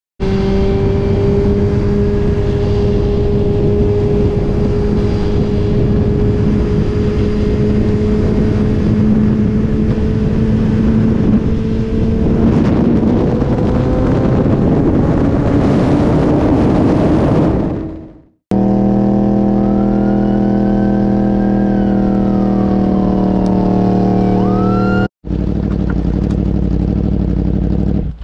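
Sport motorcycle engine running hard at highway speed with heavy wind rush, its pitch rising slowly as it speeds up, then cutting off suddenly about two-thirds of the way in. After the cut, a steady engine note runs with a police siren sweeping down and up over it, and near the end another engine is heard briefly.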